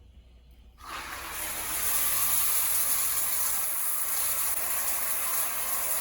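Water switched on and running steadily from a tap or shower, starting abruptly about a second in and building to a steady hiss.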